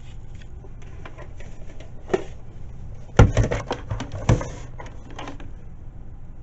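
Clattering knocks of hard objects being handled, loudest in a quick run of clacks from about three to four and a half seconds in, over a steady low hum.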